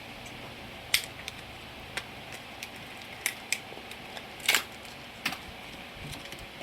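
About seven short, sharp clicks and taps as a laptop-size memory module is pressed and fitted into the RAM slot of a 2011 Mac Mini, the loudest about four and a half seconds in.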